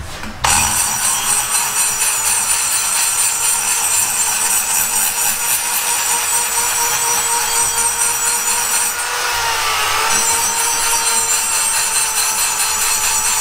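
Handheld rotary grinder running steadily while porting a cylinder head, starting abruptly about half a second in. Its pitch dips briefly about nine seconds in, then recovers.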